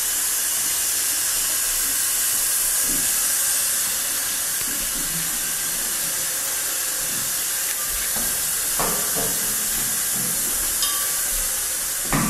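A steady, even hiss throughout, with faint brief sounds about two-thirds of the way in.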